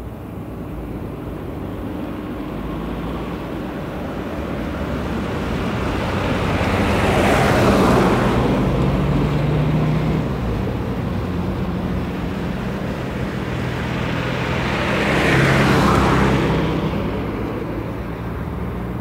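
Traffic ambience: two vehicles pass by one after the other, each a rush of tyre and engine noise that swells and fades, the first peaking about eight seconds in and the second near sixteen. A low steady rumble lies underneath.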